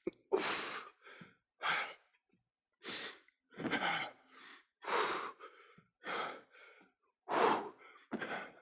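A man breathing hard from exertion: short, forceful exhalations, about one a second, close to the microphone.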